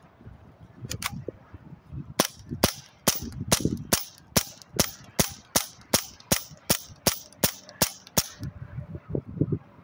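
Hatsan Blitz .22-calibre PCP air rifle firing a rapid string of shots, about three a second for some six seconds, emptying a magazine.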